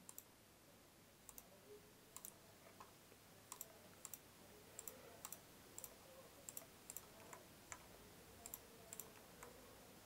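Faint computer mouse clicks, irregularly spaced and some in quick pairs, over near silence.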